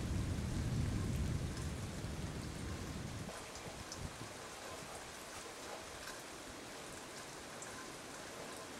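Steady thunderstorm rain, with many individual drops ticking, under a low rumble of thunder that dies away about three seconds in.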